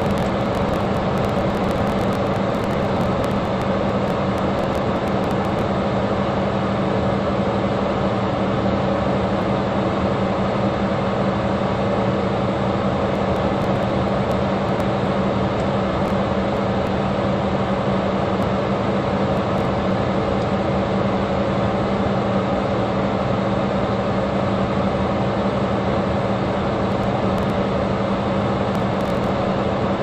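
Electric table fan running steadily: an even rush of moving air with a low motor hum underneath.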